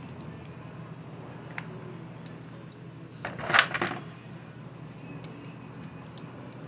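Metal hand tools clinking and clattering, loudest in a brief burst about three and a half seconds in, with scattered small clicks, over a steady low hum.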